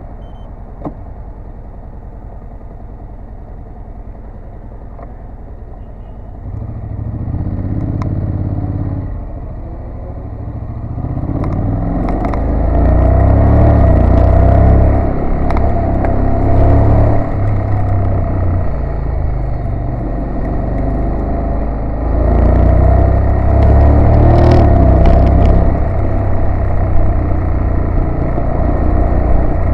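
Honda NC750S motorcycle's 745 cc parallel-twin engine running quietly at low speed, then getting louder about six seconds in and accelerating, its pitch rising in repeated steps as the DCT gearbox shifts up.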